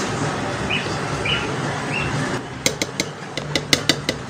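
A packet of whipped-cream powder crackling and tapping as it is emptied into a blender jar: a quick run of sharp clicks in the second half, over a steady background hum.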